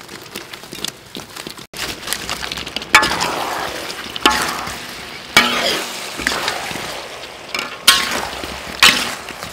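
Fried chicken wings sizzling as they are tossed in tomato sauce in a large wok. A metal spatula scrapes through them and strikes the wok about five times.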